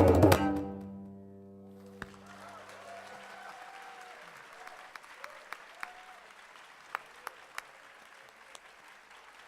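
Tabla and cello end a piece on a loud final stroke, with the cello's notes ringing out and dying away over about two seconds. Audience applause follows, with a few sharp claps standing out and some faint cheering voices.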